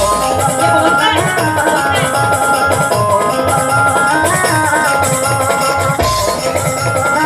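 Instrumental intro of an Indian devotional Shiva song: a melody stepping between held notes over a steady percussion beat with a shaker.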